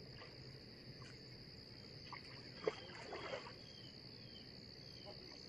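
Steady high-pitched drone of insects, with a run of short falling chirps repeating about twice a second from around halfway through and a single sharp click just after.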